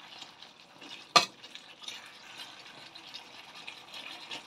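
Wooden spatula stirring chunks of beef in thick rendang spice paste around a metal pan: faint scraping and sizzling, with one sharp knock of the spatula against the pan about a second in.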